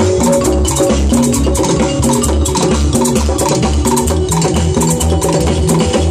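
Orchestra playing an instrumental passage without vocals: a steady bass line and pitched instruments over continuous rhythmic percussion.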